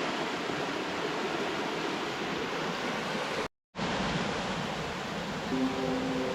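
Waterfall: steady rushing of falling water. It cuts out for a moment about halfway through and comes back the same.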